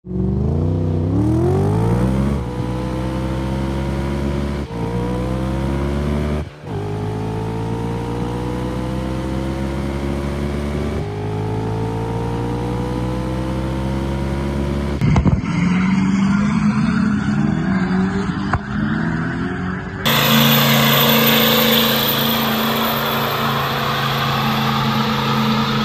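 Vehicle engine accelerating hard, its pitch climbing and then dropping back at each of several gear shifts. About fifteen seconds in the sound cuts to a different engine sound, and at about twenty seconds to a steadier engine drone with more noise.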